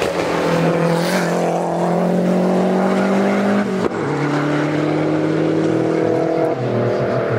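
Lancia Delta Integrale rally car's turbocharged four-cylinder engine accelerating hard past and away. The pitch climbs steadily, drops sharply at an upshift about four seconds in, climbs again, and drops at a second upshift near the end.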